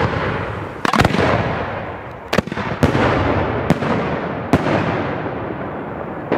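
Large aerial firework shells launching and bursting: a string of sharp loud bangs, one double, roughly a second apart, each trailed by a long rolling echo.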